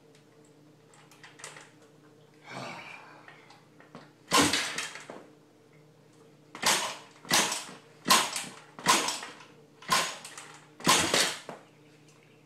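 A 110cc pocket bike's engine being kick-started over and over. A short burst of noise comes with each stroke, several strokes about a second apart in the second half, and the engine does not catch.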